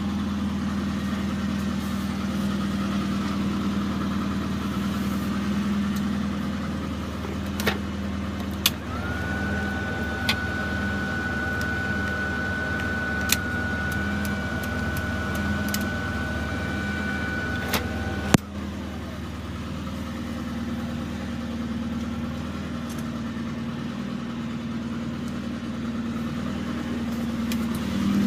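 Rover Mini 1.3i's 1275 cc A-series four-cylinder engine idling steadily. A few sharp clicks are heard, and from about a third of the way in, a steady high-pitched tone sounds for about ten seconds before cutting off with a click.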